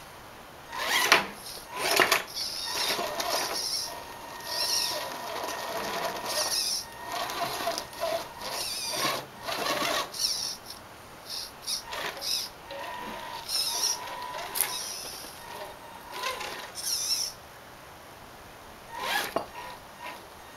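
Axial AX-10 RC rock crawler's electric motor and gearbox whining in short stop-start bursts, the pitch rising and falling with the throttle as it climbs over paving stones, with occasional knocks of tyres and chassis on stone.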